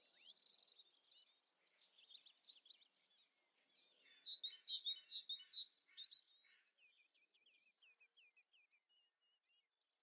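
Small songbirds singing faintly: runs of quick, high, falling notes, loudest about four to six seconds in, then a thinner series of short chirps that fades out near the end.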